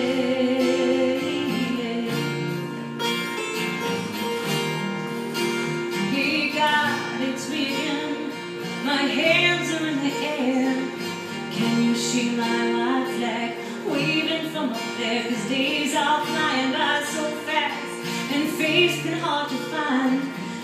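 Live acoustic country ballad: two acoustic guitars played together, with a woman singing over them in the later part.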